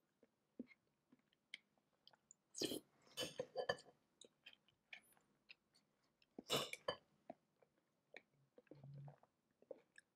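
Metal spoon stirring and scraping through sliced strawberries and a soft creamy mixture in a glass bowl: small clinks and wet squishes, with two denser bursts of scraping, one about three seconds in and one past the middle.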